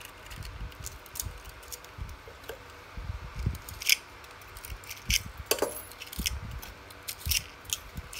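Hands handling a drill stator and its enamelled copper winding wire: scattered small clicks, taps and rustles of wire and metal, with a few louder ticks partway through.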